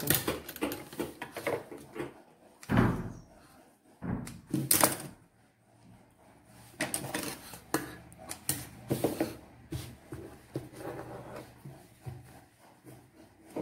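White apron fabric rustling and being shifted about at a sewing machine once the machine has stopped, with scattered knocks and clicks from the handling.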